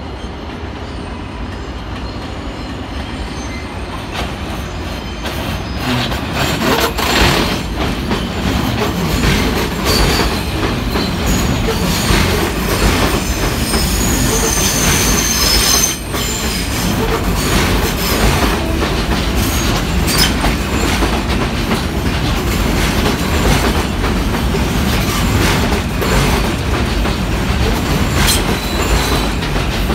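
New York City Subway train of R160 cars pulling in and passing close by, growing louder as it nears. Its wheels clack over the rail joints, with a high wheel squeal about halfway through.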